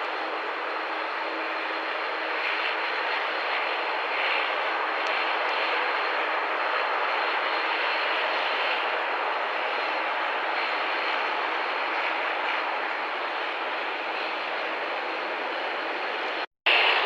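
Airliner jet engines running, a steady rushing noise with a faint steady hum, swelling slightly a few times. The sound cuts off abruptly near the end.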